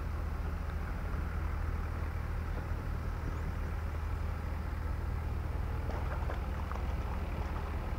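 Steady low rumble of wind buffeting the microphone. Faint rustling near the end as a mesh keep net is lifted from the water.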